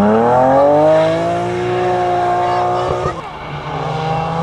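A rally car's engine revs hard as it accelerates away, its note climbing steeply and then holding high. The note cuts off abruptly about three seconds in. Another rally car's engine, a lower, steady note, then comes from a Ford Focus WRC approaching.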